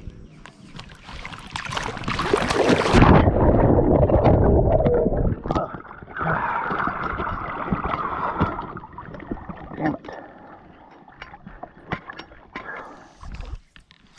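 Water sloshing and splashing right at the microphone, loud for a few seconds, then a lighter water noise. Near the end come scattered small clicks and knocks.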